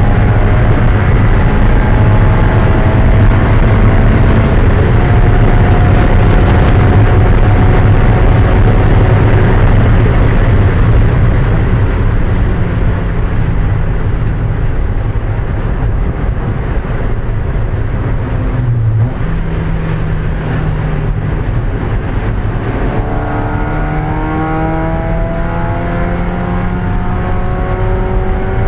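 1995 Mazda Miata's 1.8-litre four-cylinder engine running hard at high revs under racing load. It eases back in the middle with a brief lift about two-thirds of the way through, then pulls again with its pitch rising as the car accelerates near the end.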